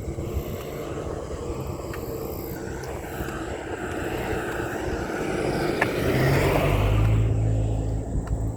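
A vehicle passing by, its sound building gradually to a peak a little past the middle and then fading.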